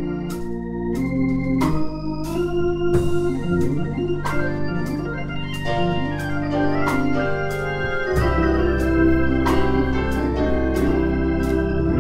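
Instrumental church band music: an organ holding sustained chords that change every second or two, with keyboards and drum and cymbal hits.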